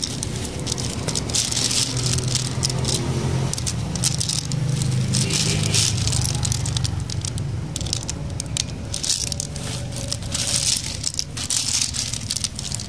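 Snail shells clattering and clicking against each other as a hand rummages through a heap of live land snails and dry leaf litter, a dense irregular rattle with a steady low hum underneath.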